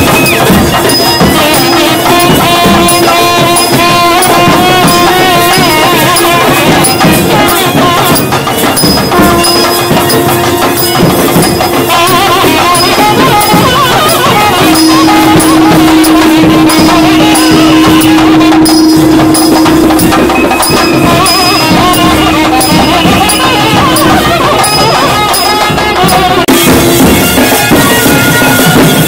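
Traditional South Indian music with dense drumming: a held drone note runs under a wavering melody line, with regular small high ticks like cymbal strikes.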